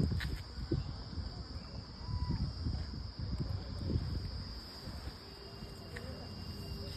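Steady high-pitched drone of insects, with irregular low rumbles underneath.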